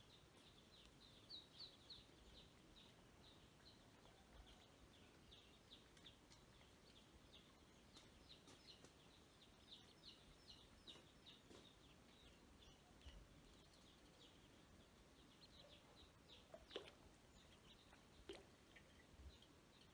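Ducklings peeping faintly and almost continuously, many short high peeps that slide down in pitch, with a couple of sharper, louder sounds near the end.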